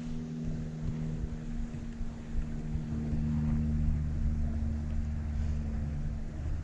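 An engine droning steadily at a distance, getting a little stronger about three seconds in.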